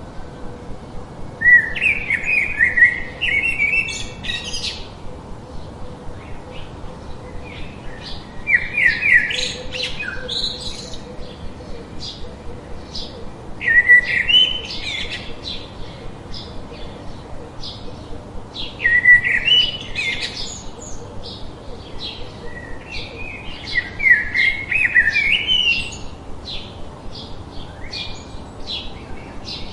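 Forest birds singing. One bird repeats a rising song phrase of two to three seconds about every five seconds, over a steady chirping of about two chirps a second.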